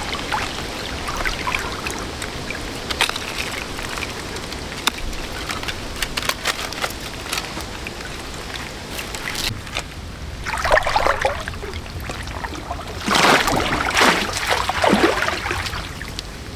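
Water sloshing and splashing, with scattered small knocks; louder splashes come about ten seconds in and again around thirteen to fifteen seconds.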